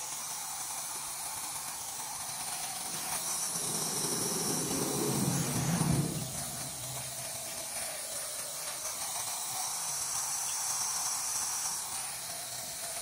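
Water spraying from a garden hose onto plants, a steady hiss. Between about four and six seconds in the sound grows louder and deeper, then drops back sharply.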